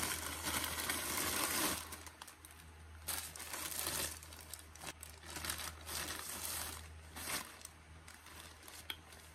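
Plastic clothing packaging rustling and crinkling as it is handled and opened, loudest for nearly two seconds at the start, then in shorter bursts as the garment is pulled out.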